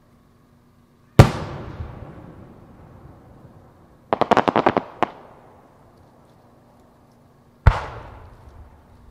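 Aerial firework shells bursting. A sharp bang about a second in rolls away in a long echo, a quick string of about nine sharp pops follows around four seconds in, and a second bang with its echo comes near the end.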